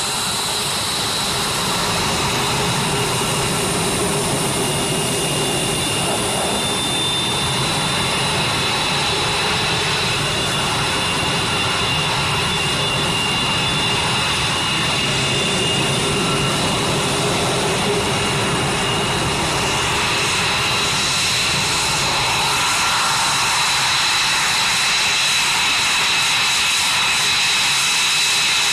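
F-22 Raptor's twin turbofan engines running at taxi power: a steady jet roar with a high whine, growing slightly louder as the jet taxis out of its shelter.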